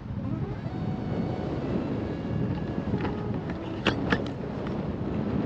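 Wind rushing over a camera microphone in tandem paraglider flight: a steady low buffeting rumble. A few sharp clicks or knocks come about three to four seconds in.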